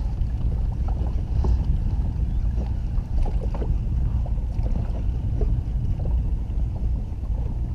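Steady low rumble of wind and water on a small boat out at sea, with a few faint scattered ticks.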